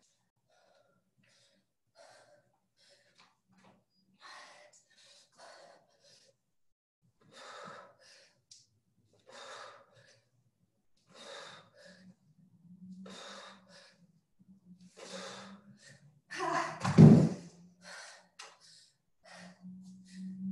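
A person breathing hard from exertion during a workout, with sharp exhales about every one to two seconds. A louder, deeper grunt comes near the end.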